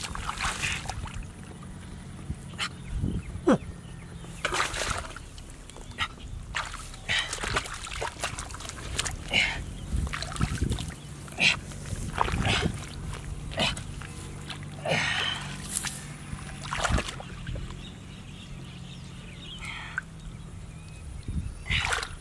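Hands splashing and sloshing in a shallow muddy stream, in irregular short bursts, while digging into the mud and grass clumps of the bank.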